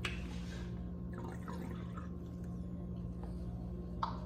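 Steady low hum, with a short hiss in the first moment and a few faint small noises.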